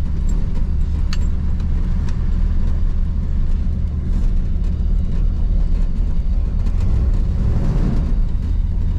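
Chevrolet square-body short-bed pickup driving slowly, heard from inside the cab: its engine and drivetrain make a steady low rumble, with a couple of light clicks in the first two seconds.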